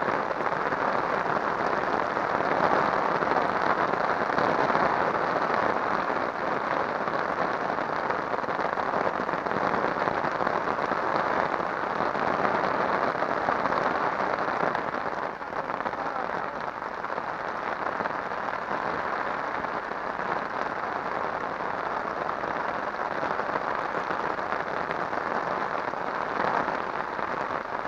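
Heavy rain falling steadily, a dense even hiss that grows a little softer about halfway through.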